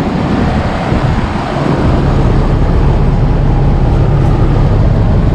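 Several central air conditioner condensing units running: the steady rush of the condenser fans blowing out hot air over a low compressor hum, which grows louder about two seconds in as one unit comes closer.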